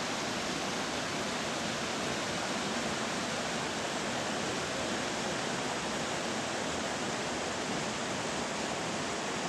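Mountain stream cascading over boulders: a steady rush of white water.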